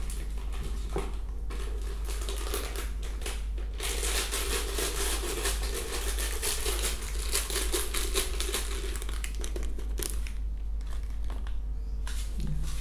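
Food packaging crinkling and rustling in the hands, with scattered small clicks, as dry feed is tipped into a plastic tub. It thickens about four seconds in and stops about ten seconds in.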